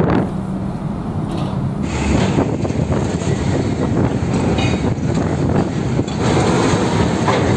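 Heavy trucks driving onto a ferry: diesel engine running and the rattling clatter of the wheels crossing the steel loading ramp plates. The sound changes abruptly just after the start, near two seconds in, and again past six seconds, as short clips follow one another.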